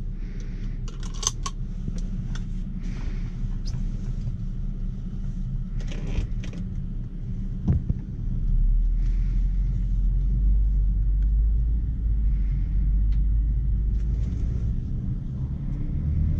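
BMW 5 Series sedan's engine and road rumble heard from inside the cabin, low and steady, getting louder about halfway through as the car pulls away. A few light clicks from the controls at the centre console come over it.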